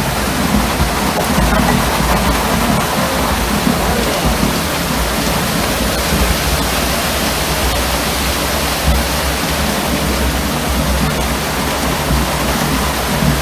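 Wet concrete pouring down a truck chute into a tremie hopper: a steady rushing noise, with a low rumble underneath.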